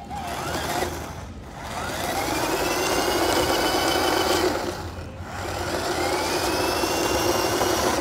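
Small DC motors of a wired cardboard RC car whirring as it drives, with the whine rising in pitch as the motors spin up. There is a short burst at the start, then two longer runs with a brief break about five seconds in.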